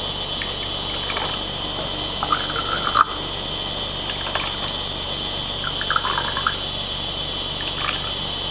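Green tea poured from a red clay kyusu teapot into small glass cups, in short intermittent trickles and drips. A steady high-pitched whine runs underneath.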